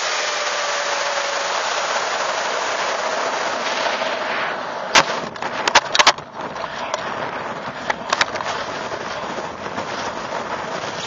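Steady rush of air over a model rocket's onboard camera as it descends under its drogue chute. About five seconds in, a quick cluster of sharp clicks and knocks as the homemade release device opens and the main parachute and its shock cord whip out against the airframe, with a few more knocks a few seconds later. The air noise then goes on slightly quieter.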